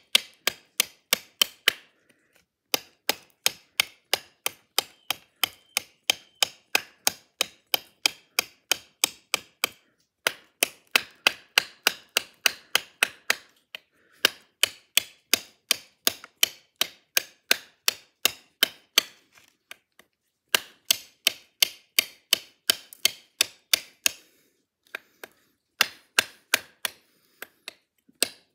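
A handle-less Spyderco HIC ceramic Mule Team blade chopping into hard wood: sharp, rapid strikes about three a second, in runs broken by short pauses.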